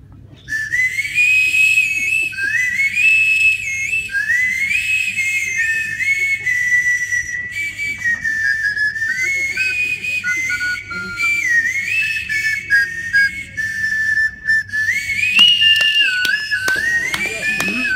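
Two improvised whistles made from red rubber plunger cups playing a high whistled tune together, the notes stepping and sliding up and down. A few knocks near the end.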